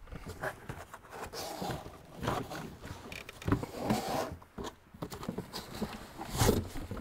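Irregular rustling, scuffing and soft knocks of a heavy charging cable being lifted out of a cardboard box, the cardboard scraping against the cable and hands.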